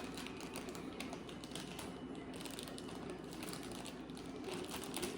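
Faint, rapid clicking and rustling of dry strawberry cake mix being shaken out of its package into a mixing bowl.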